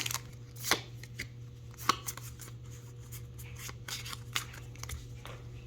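Pokémon trading cards being handled and slid past one another: soft rustles, with sharper flicks about one and two seconds in.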